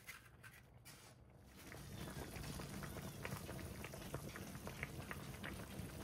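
A pot of mala tang broth bubbling at a boil. Many small irregular pops and spatters set in about two seconds in.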